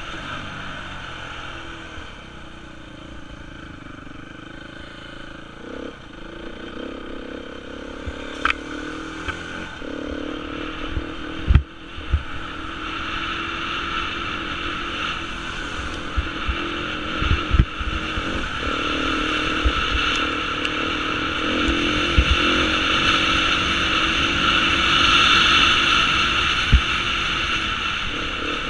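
Beta 350 four-stroke enduro motorcycle engine running under way on a dirt track. The engine pitch falls and rises with the throttle, the bike gets louder after about twelve seconds, and occasional low thumps come through from the bumps.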